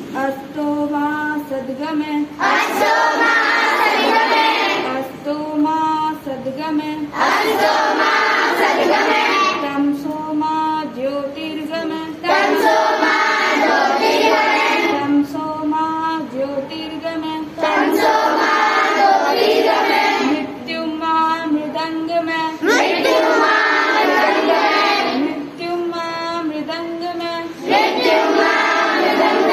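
A group of schoolchildren singing a prayer together. Full-group lines come about every five seconds and alternate with stretches where a single clearer voice carries the tune.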